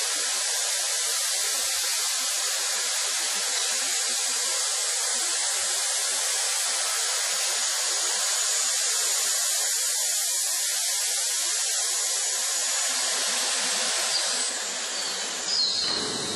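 A loud, steady hiss, like air or steam escaping under pressure. It changes and thins out near the end, where a few short knocks sound.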